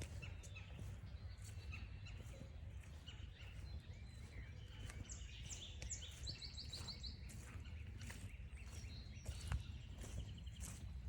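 Woodland songbirds calling: a quick run of high notes and a rapid trill about five to seven seconds in, and another short trill near the end, over soft regular footsteps on a trail and a low rumble.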